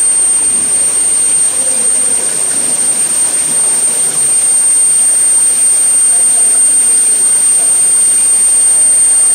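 Quench water spraying under pressure from induction coils onto hot steel shafts on a CNC induction hardening machine: a loud, steady hiss, with a constant high-pitched whine running through it.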